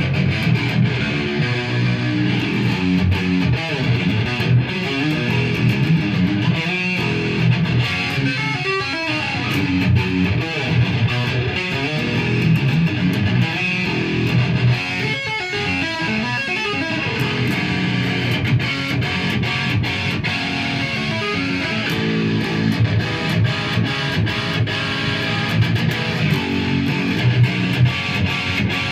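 Solo electric guitar played without pause, a steady run of picked notes and chords at an even loudness.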